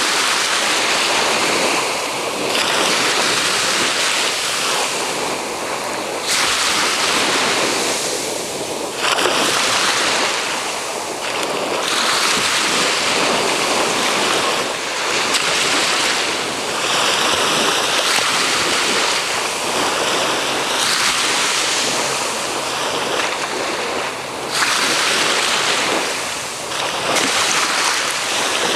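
Ocean waves washing, a steady loud hiss that swells and eases every few seconds, with wind on the microphone.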